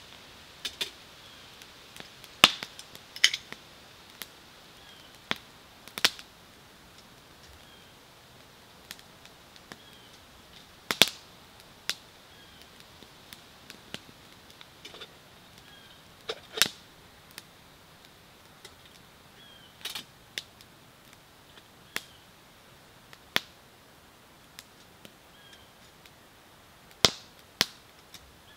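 Wood campfire crackling: sharp, irregular snaps and pops, roughly one every one to three seconds, over a faint steady hiss.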